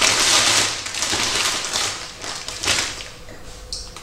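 Crinkling and rustling of candy wrappers and packaging being handled: a long crackle in the first second, then a few shorter crackles.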